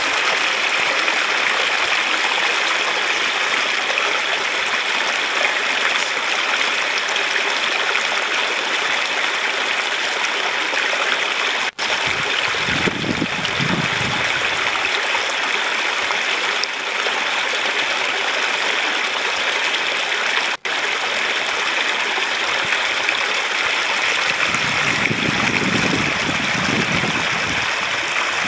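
Small rocky upland stream running over stones and little cascades: a steady rush of water that cuts out for an instant twice.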